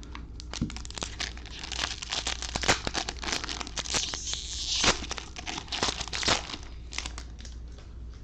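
Foil wrapper of a Bowman baseball card pack being torn open and crinkled: a dense run of sharp crackles, busiest in the middle, with a longer hissing tear partway through.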